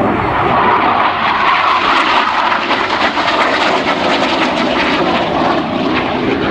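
A SEPECAT Jaguar's twin Adour turbofans giving loud, steady jet noise with a crackling edge as the jet manoeuvres overhead.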